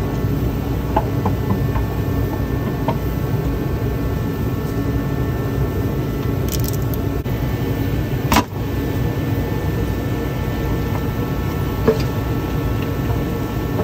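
Steady low mechanical hum throughout, with a few light clicks and two sharper knocks, one a little past halfway and one near the end, from hands and parts working at the car's underside during oil pan removal.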